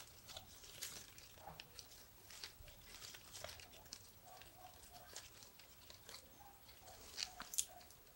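Faint rustling of ficus leaves and scattered small clicks and crackles as fingers handle and pinch the thin stems.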